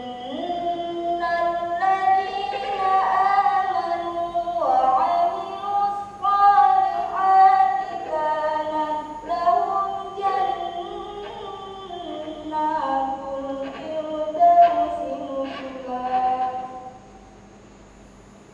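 A woman's solo voice singing or chanting unaccompanied, in long held notes that glide between pitches, phrase after phrase, stopping shortly before the end.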